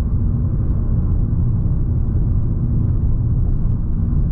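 Steady low rumble of a car being driven, heard from inside the cabin: engine and tyre noise with no changes in pace.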